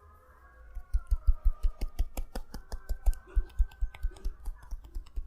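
Hands tapping rapidly on the body in a percussive massage. The sharp slaps start about a second in and go on at about five or six a second.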